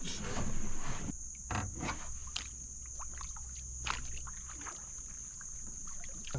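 Anchor being hauled up into a small jon boat: rope and water noise at first, then scattered knocks and clicks against the hull. Crickets or other insects trill steadily behind it.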